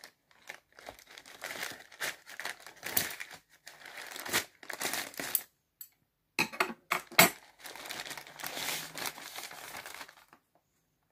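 Grey plastic postal mailer bag crinkling and tearing as it is cut and pulled open, with a few sharp clicks and knocks about six to seven seconds in. The rustling stops about ten seconds in.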